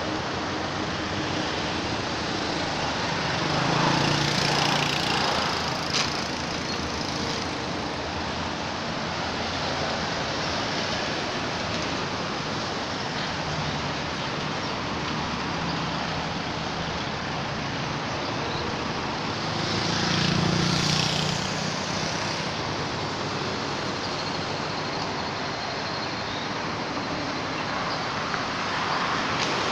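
Steady background traffic noise, with a vehicle engine swelling louder as it passes about four seconds in and again about twenty seconds in.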